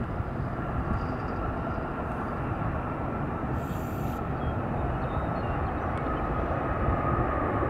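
Airbus A319-132 jet engines running as the airliner rolls out on the runway just after touchdown: a steady low rumble with a thin high whine held through it, growing a little louder near the end.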